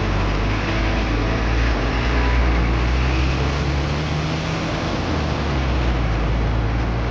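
Busy city street traffic: heavy vehicle engines running close by over a steady road rumble, with a double-decker bus's engine passing at the start.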